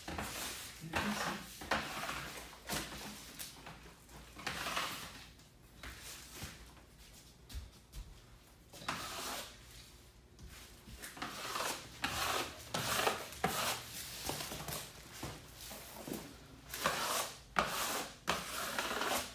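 Irregular rubbing and scuffing noises in short swishes about a second apart, with a few light knocks.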